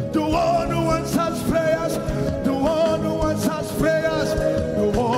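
Live gospel worship music: a voice singing over a band, with a drum kit being played.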